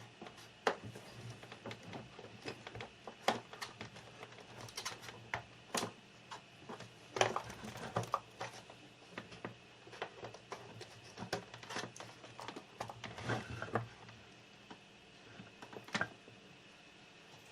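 Irregular clicks, knocks and rattles of cables and connectors being handled and plugged in by hand, over a faint steady hum.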